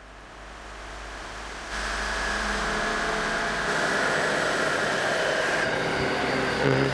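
A rushing, static-like noise fades in from silence and then holds loud. Its character changes abruptly every two seconds or so, with faint steady tones running through it: the kind of odd noise a synthetic voice output sometimes makes instead of speech.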